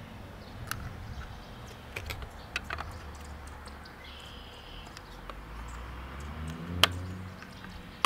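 Small plastic dishes being fitted and clicked into a plastic bird-feeder perch: scattered light clicks and taps, the loudest about seven seconds in, over a steady low rumble.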